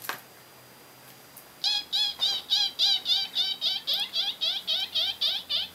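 A fast, even run of short high-pitched squeaks, about five a second, starting about a second and a half in. It is the squeaking voice of a small pink hand puppet as it pops up.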